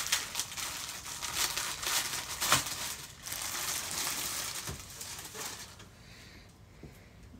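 Thin plastic packaging bag crinkling and rustling as it is pulled open and a folded T-shirt is drawn out, with a sharp crackle about two and a half seconds in. The crinkling dies down near the end.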